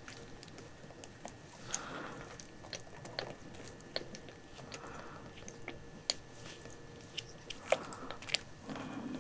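Faint, scattered small clicks and smacks of a young kitten's mouth working at a rubber nursing-bottle nipple.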